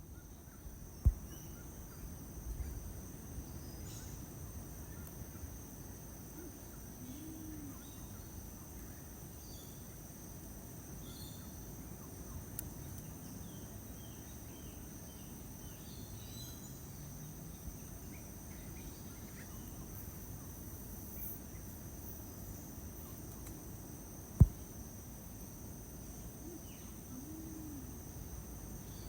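Tropical rainforest ambience: a steady high insect drone over a low wind rumble, with scattered short bird chirps and, twice, a low soft hooting note. Two sharp clicks, about a second in and near the end, are the loudest sounds.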